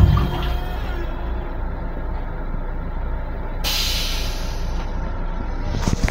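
Steady low hum and rumble of an M7 commuter railcar, heard from inside its restroom, with a short burst of hissing air about three and a half seconds in.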